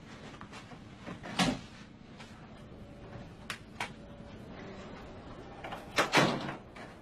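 Office door being opened and shut: a knock about a second and a half in, two short clicks of the latch around three and a half seconds, and the loudest pair of thumps about six seconds in as it closes.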